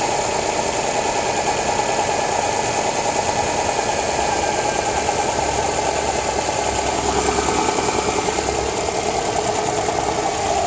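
Subaru Forester flat-four boxer engine idling with a fast, even knocking or ticking at low revs. The owner cannot tell whether it is valve noise, a worn bearing shell, or piston slap.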